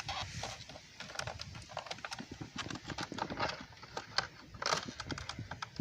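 Irregular plastic clicks and creaks as a tight turn signal light is pried out of a truck's side-mirror housing by hand, with a louder cluster of clicks near the end.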